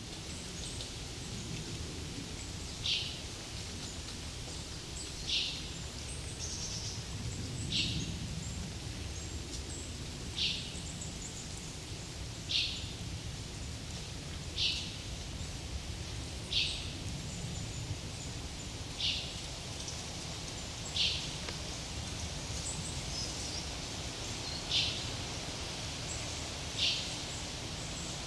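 Forest ambience: a bird repeats a single short, high call about every two seconds over a steady low rush of breeze, with faint higher twittering from other birds.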